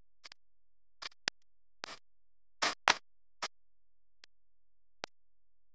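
About a dozen short, irregular clicks and scratchy ticks over near silence, some sharp and some a little longer and rougher.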